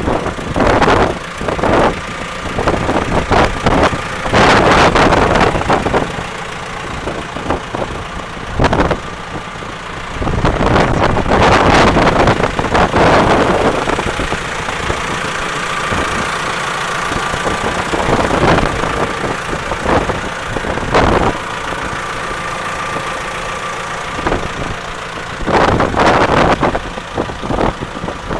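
Diesel engine of a JCB 3CX backhoe loader running at idle, overlaid by irregular loud gusts of noise.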